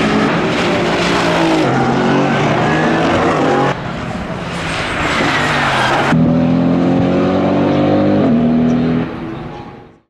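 Mercedes-AMG GT4's 4.0-litre twin-turbo V8 under hard use on track, its pitch rising with acceleration and dropping in steps at the gear changes. The sound changes abruptly a few times and fades out near the end.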